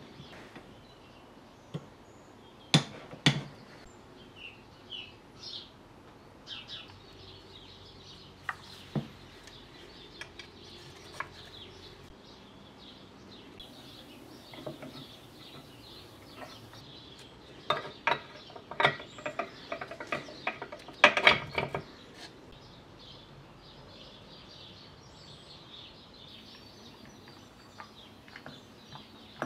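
Hand tools and steel gearbox parts clicking and clinking as a tiller gearbox is reassembled, with two sharp clicks a few seconds in and a quick run of ratchet-like clicks about two-thirds of the way through.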